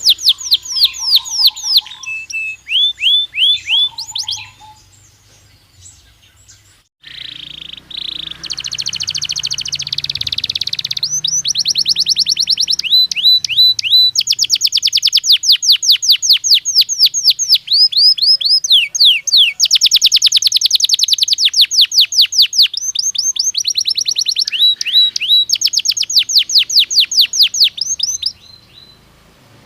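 Belgian canary singing: rapid trills and fast runs of repeated sweeping notes, with a pause of a couple of seconds early on and the song breaking off near the end.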